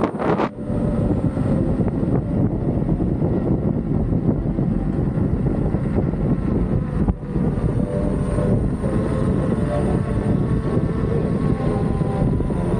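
Steady rush of wind over the microphone of a camera carried on a moving electric unicycle, with a faint steady hum underneath.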